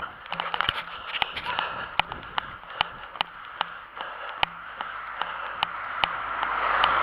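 A runner's footsteps on a paved footpath, a steady beat of about two and a half strides a second, over a rushing noise that swells over the last couple of seconds.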